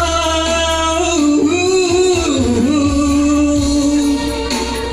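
A man singing long held notes into a microphone, sliding down about halfway through to a lower sustained note, over electronic keyboard accompaniment with a steady bass line.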